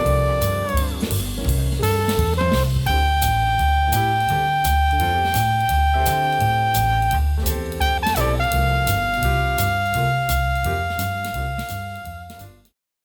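Background jazz music: a saxophone playing long held notes with slides over a walking bass and drum kit, fading out and stopping near the end.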